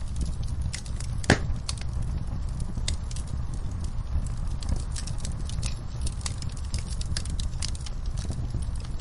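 Wood logs burning in a fireplace: a steady low rumble of the flames with frequent sharp crackles and pops, one louder pop about a second in.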